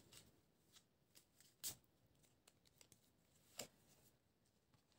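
Near silence broken by a few faint, short clicks of tarot cards being handled, the clearest two about a second and a half and three and a half seconds in.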